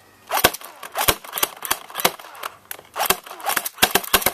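Airsoft HK MP5 firing single shots in semi-auto, about a dozen sharp cracks at an uneven pace, with the BBs hitting a box.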